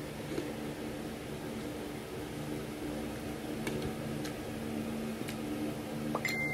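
Steady low machine hum with a few faint clicks of eating by hand: fingers picking raw red bell pepper and rice off a plate, and chewing.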